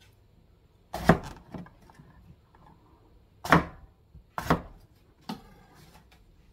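Kitchen knife slicing through eggplant onto a cutting board: about five separate cuts, each a sharp knock on the board, spaced unevenly a second or so apart.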